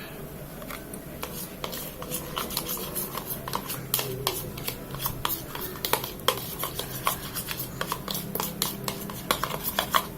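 A stirrer scraping and clicking irregularly against a container as clear glue with glitter and blue dye is mixed into slime.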